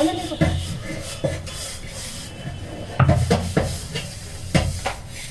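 Crushed vegetables being scooped by hand from a wooden chopping board into a plastic bowl: scattered soft knocks and rustles of hands, food, bowl and board, with a cluster of knocks about three seconds in.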